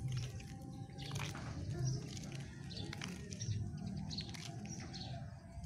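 Faint, scattered bird chirps outdoors over a low steady background rumble.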